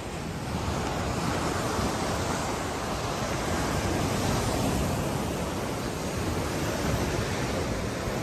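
Mediterranean surf washing onto the shore, a steady rushing noise, with wind buffeting the microphone in a low rumble.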